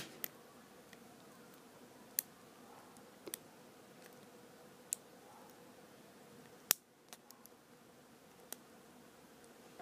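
Lock pick and tension tool working inside a Master Lock No.3 padlock as it is being picked: scattered, faint single clicks about every second or two, with the sharpest click about two-thirds of the way through and a few small ones just after it.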